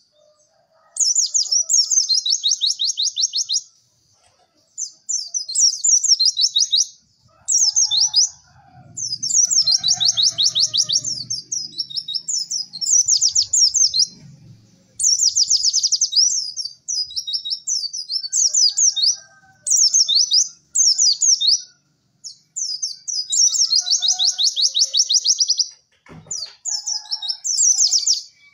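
White-eyes (pleci) singing: repeated bursts of fast, high-pitched chattering trills, each lasting one to three seconds with short pauses between. A single sharp click comes about 26 seconds in.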